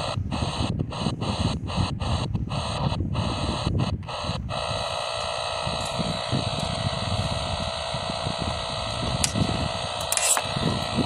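Shortwave static hiss from a Tecsun PL-380 portable radio's speaker. For the first four seconds or so it cuts out briefly over and over as the tuning knob steps through frequencies, then it settles into an unbroken hiss with no station tuned in.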